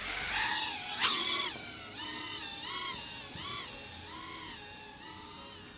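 Tiny 2.5-inch FPV quadcopter's brushless motors spooling up sharply into a high whine about a second in as it lifts off, then the whine rising and falling in pitch several times as the throttle is worked.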